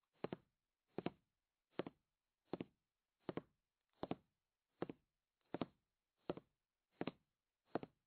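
Soft, evenly spaced knocks in a steady beat, about four every three seconds.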